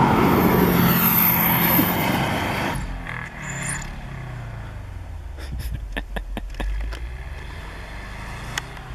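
2005 Subaru Forester XT's turbocharged flat-four engine revving hard as the car pulls away with its wheels spinning in snow, loud for about the first three seconds, then dropping away as it drives off. A run of sharp clicks about six seconds in.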